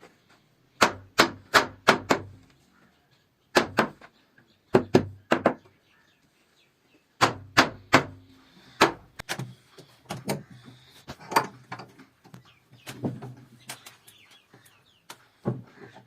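Hammer blows on wood: about two dozen sharp knocks, each with a dull thump beneath, coming in quick groups of two to five with short pauses between.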